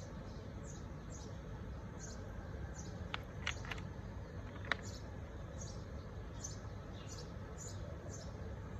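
A small bird chirping repeatedly, short high falling chirps about twice a second, over a steady low background rumble, with a few sharp clicks near the middle.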